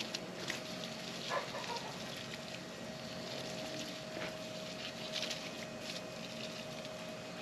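Water from a garden hose running into a soil-filled planter barrel, a steady faint splashing hiss, with a steady faint hum underneath.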